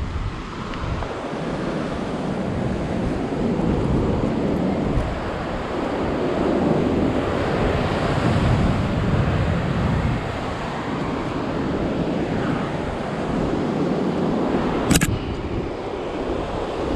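Ocean surf breaking and washing over rocks, swelling and easing every few seconds, mixed with wind buffeting the microphone. A single sharp click comes about two seconds before the end.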